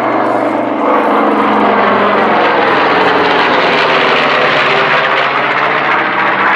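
North American B-25 Mitchell bomber's twin air-cooled radial engines going past loudly. Its engine note falls in pitch between about one and two and a half seconds in as it passes.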